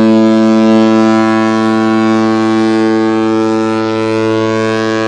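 Ice hockey goal horn sounding one long, deep, steady blast.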